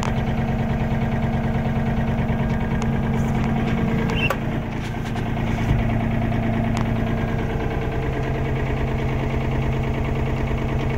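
Diesel engine of a 2007 Komatsu PC35MR-2 mini excavator idling steadily, heard from inside the operator's cab, with a few light clicks.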